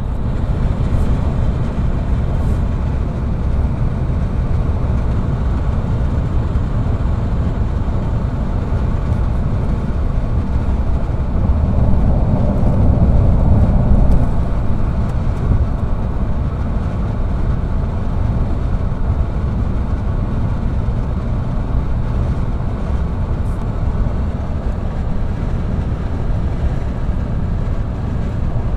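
Steady road and wind noise of a vehicle driving at speed, heard from inside the cabin: a low rumble of tyres and engine with wind hiss, growing a little louder about halfway through.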